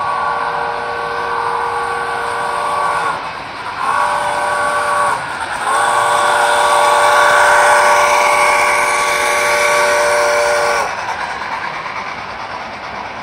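Sound-equipped model steam locomotive, a 4-8-4 in American Freedom Train livery, sounding its chord whistle through its onboard speaker in three blasts: long, short, then a long one of about five seconds. Running noise of the model train continues underneath.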